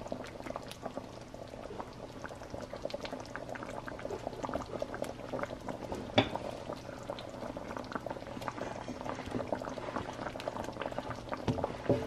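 Thick coconut-milk shrimp stew bubbling at a boil in a wok: a steady patter of small pops. One sharper click comes about halfway, and a spatula stirs in near the end.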